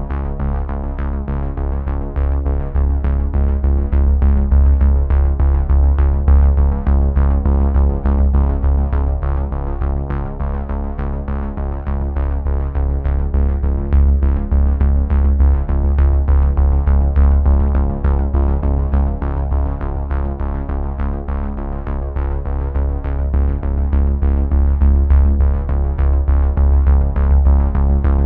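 Background music: an electronic track with synthesizer, a heavy bass and a steady drum-machine beat.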